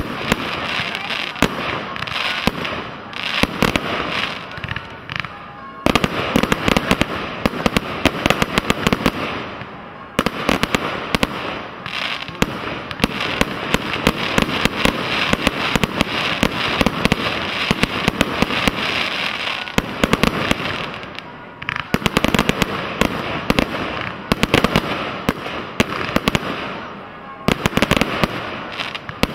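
Firework display: a continuous barrage of aerial shells bursting, with dense crackling and rapid bangs. The thickest stretches come about 6 to 10 seconds in and again from about 12 to 20 seconds, with brief lulls between.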